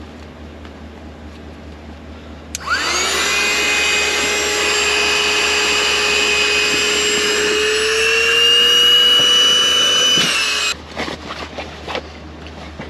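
A small 12-volt electric air pump, powered from the truck's cigarette lighter, inflating an air-mattress chamber. It spins up with a quick rising whine about two and a half seconds in, runs with a steady whine that climbs slightly in pitch in its last few seconds, and shuts off abruptly about ten and a half seconds in.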